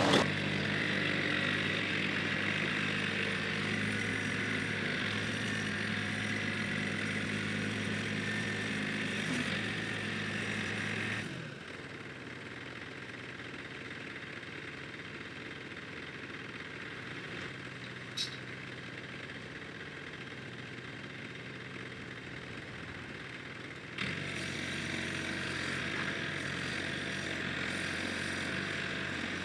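A machine's motor running steadily, then shutting off and winding down with a falling pitch about eleven seconds in. After a quieter stretch with one short click, a similar steady machine sound starts suddenly again near the end.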